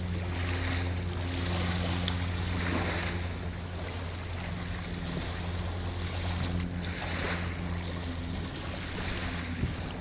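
A boat engine running steadily with a low, even hum, over the wash of river waves and wind on the microphone. There is a small knock near the end.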